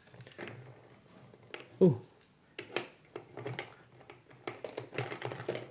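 Small plastic toy ice cream cart pieces and a toy scoop clicking and clattering as they are handled, a run of light taps in the second half. Shortly before that, a brief voice sound falling in pitch.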